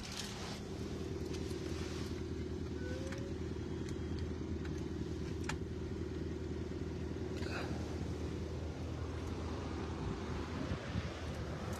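Peugeot 3008 GT's 1.6-litre petrol engine idling steadily, heard from inside the cabin, with a couple of light clicks from handling the plastic-covered seat.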